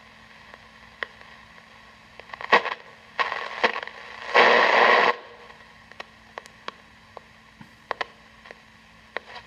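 Panasonic RF-562D portable radio being tuned between stations: static hiss with a faint steady hum and scattered crackles, broken by short bursts of noisy signal as the dial passes stations, the loudest lasting under a second about four and a half seconds in.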